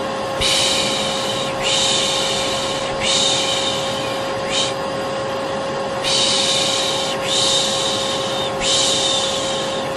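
Vacuum cleaner running with a steady hum, overlaid by a person shushing ('shh') in a string of long hisses, each about a second long. The shushing pauses briefly around the middle.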